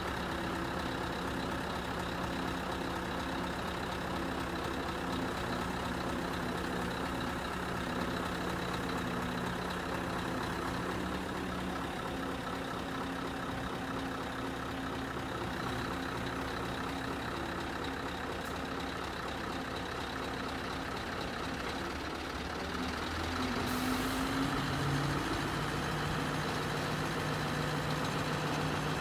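Scania R500's V8 diesel engine running steadily while the truck's hydraulic crane is worked. About 24 seconds in, the engine speeds up and its pitch rises, and it runs a little louder from there on.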